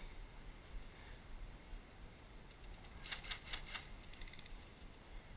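A short burst of airsoft gunfire, about six rapid sharp clicks about three seconds in, followed by a few fainter clicks, over a low rumble of handling noise.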